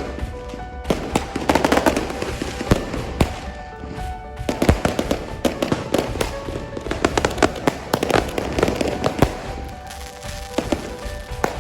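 Fireworks going off in a rapid, irregular string of cracks and bangs, with music playing alongside.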